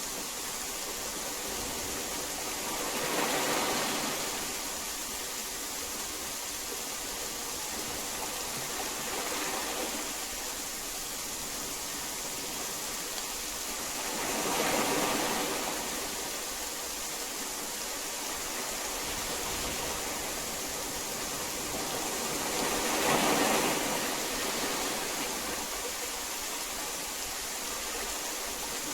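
Steady heavy rain, a dense hiss that swells three times: a few seconds in, about halfway, and about four-fifths of the way through.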